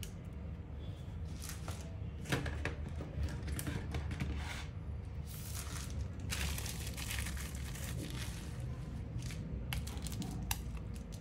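Close-up handling noises from phone repair work: crinkling and tearing rustles with scattered sharp clicks, over a steady low hum.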